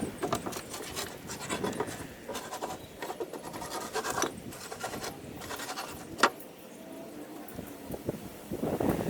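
Irregular scraping and rubbing of wood with small knocks, as a wooden board is worked and slid into place under a truck camper, with one sharp knock about six seconds in.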